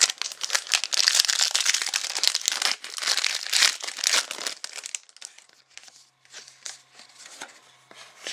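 Foil trading-card pack wrapper being torn open and crinkled, a dense crackling for about five seconds that thins out to scattered crackles and ticks.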